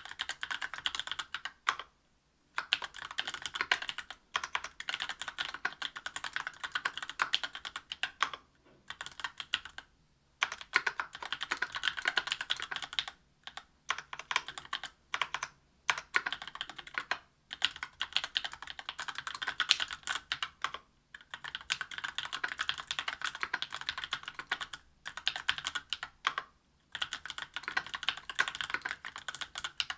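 Continuous typing on a Special Dolphin 2021 custom mechanical keyboard with stock, unlubricated Tecsee Oreo 63.5 g linear switches in an aluminium plate and GMK Modern Dolch Light keycaps. It is a dense run of keystroke clacks, broken by short pauses every few seconds.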